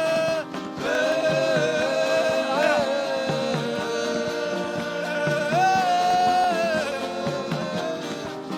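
Gospel worship music: a long, held wordless vocal line that slides slowly between notes over a soft instrumental backing.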